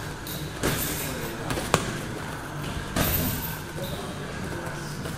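Boxing gloves landing strikes in sparring: three thuds about a second apart, the sharpest near the middle.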